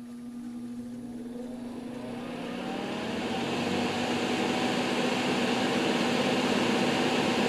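Electric fan of a NOEVSBIG solder fume extractor, filter installed, spinning up: a steady motor hum with a whine rising in pitch over the first few seconds as the rush of air builds, then running steadily. The fan does not sound happy with the filter in; the owner suspects it needs oil.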